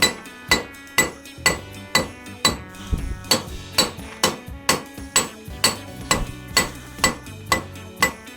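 Blacksmith's hammer striking hot flat bar on an anvil, in a steady rhythm of about two blows a second, each with a bright metallic ring.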